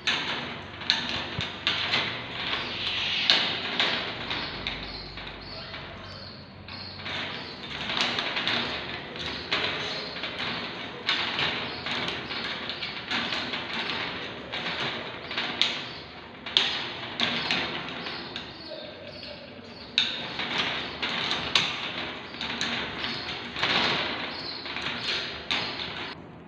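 A budgie pecking at an egg and knocking it about on a hard surface: irregular taps and knocks throughout, several a second at times.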